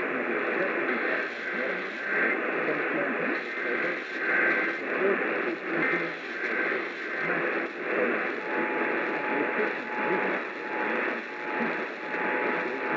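AM radio broadcast heard through static: a muffled, narrow-band voice under a steady hiss that swells and fades about twice a second.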